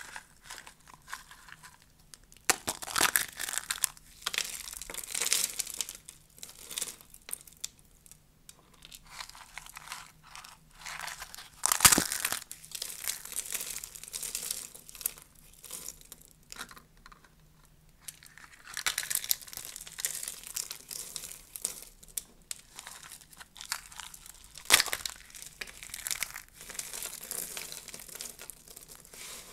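Dry bar soap crunching and crackling as fingers crush and break off pieces of carved soap, in irregular bursts with short pauses. There is a sharp snap a little before halfway and another near the end.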